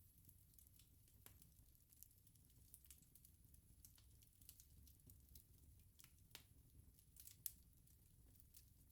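Faint wood bonfire crackling: scattered sharp snaps and pops over a low rumble, with a few louder snaps in the second half.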